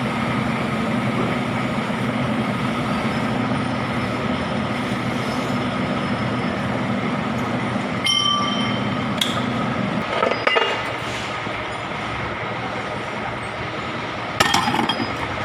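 A steady machine hum that drops away about ten seconds in, with metal tools clinking against metal several times.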